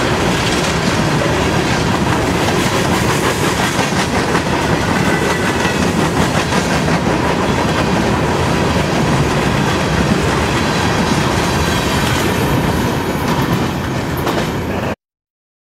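Coal hopper cars of a long freight train rolling past at close range: a steady rumble with the clickety-clack of wheels over rail joints, which cuts off suddenly near the end.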